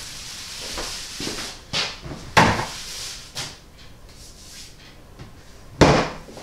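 Knocks and clunks of kitchen units being opened and shut. The two loudest come about two and a half seconds in and near the end, with a few softer bumps between.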